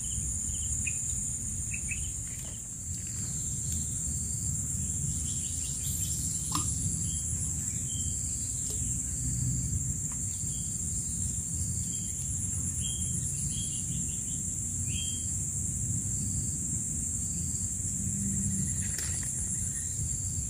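Steady high-pitched chorus of insects over a low steady rumble, with a few faint short chirps.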